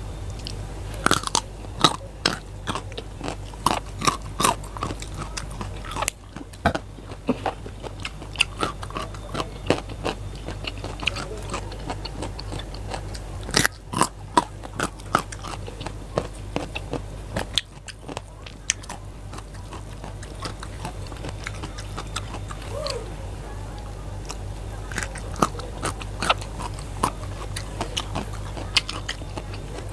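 Raw vegetables crunched and chewed close to the microphone: clusters of sharp crisp bites and chews with short pauses between them, over a low steady hum.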